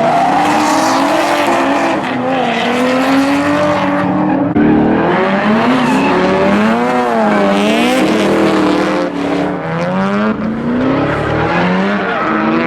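Drift car engine revving hard, its pitch rising and falling repeatedly as the throttle is worked, over steady tire squeal.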